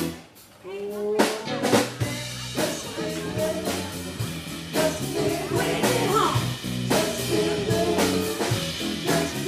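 Live rock band with drum kit, electric guitars and bass playing a soul cover: a loud accented hit at the start, a brief drop, then the drums and bass come back in and settle into a steady groove.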